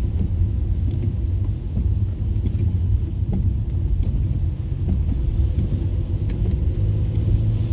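Steady low rumble of a car being driven.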